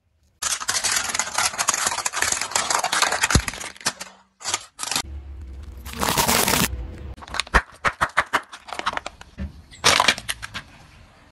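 Car tyre rolling over and crushing objects: a long run of dense crinkling and crackling as a plastic-wrapped item is flattened, then several shorter bursts of crackles and snaps as other small items are crushed.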